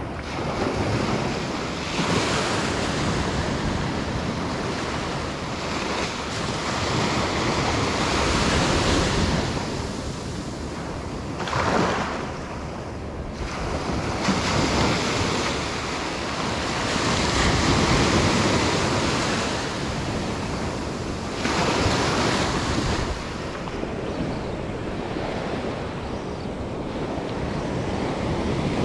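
Ocean surf washing in on the shore in repeated swells every few seconds, with wind buffeting the microphone.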